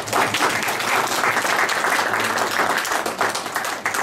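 Small audience applauding: dense clapping that starts suddenly and keeps up steadily.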